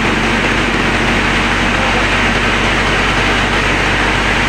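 SB30 rice mill running steadily, driven by the engine behind it: a constant mechanical noise of grain passing through the mill, with a steady low engine hum underneath.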